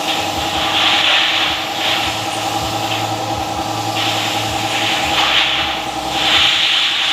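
A motor running steadily, with repeated irregular bursts of hissing, each under a second to about a second long, on top of it.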